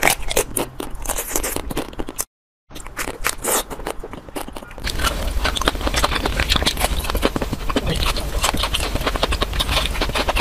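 Close-up eating sounds of ice-cream bars: rapid crackling and crunching bites into hard coatings. The sound breaks off briefly about two seconds in.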